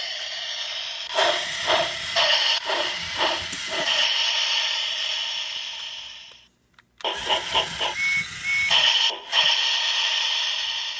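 Battery-powered remote-control Trackmaster Percy toy engine running, its small electric motor giving a steady high whine with clattering knocks from the drive. A little past the middle the sound cuts out for about half a second, then starts again, with two short high tones soon after.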